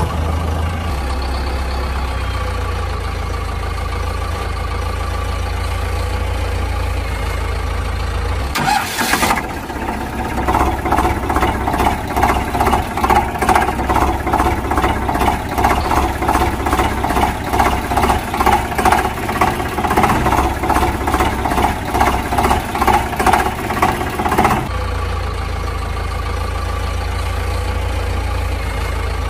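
Engine running, laid over a toy digger, which itself has no engine. It idles steadily with a low hum, then about nine seconds in switches to a rhythmic pulsing, about two beats a second, for some fifteen seconds, then settles back to the steady idle.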